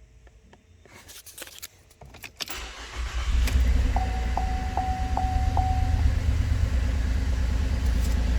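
A 2012 Holden Commodore VE V6 engine is cranked and starts about two and a half seconds in, then settles into a steady idle. The car has logged a misfire code (P0300). A few faint clicks come before the start, and a warning chime beeps five times just after the engine catches.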